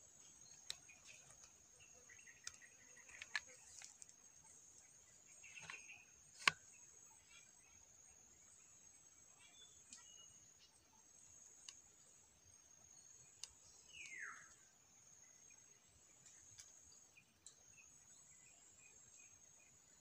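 Faint steady high-pitched shrilling of forest insects. It is broken by scattered small clicks, one sharper click about six and a half seconds in, and a single short call sliding downward in pitch near fourteen seconds.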